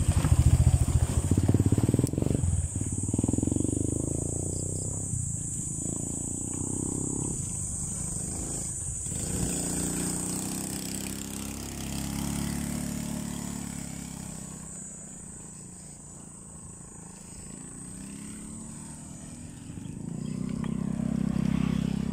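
Motor vehicles passing the bicycle on a rural road, their engines rising and fading. The loudest pass is in the first few seconds, with another near the end.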